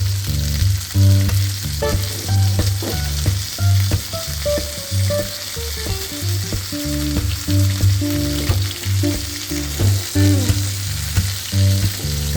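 Eggplant sizzling steadily as it fries in a little oil in a pan. Background music with a pulsing bass line and a changing melody plays over it.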